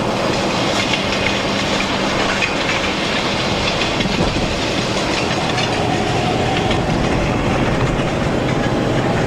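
Freight train rolling by at about 30 mph, its car wheels clattering steadily over the rail joints.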